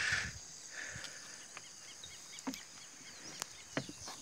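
Insects chirping steadily in the background. A short hiss comes at the start, a quick run of faint chirps a little before the middle, and a few sharp clicks in the second half.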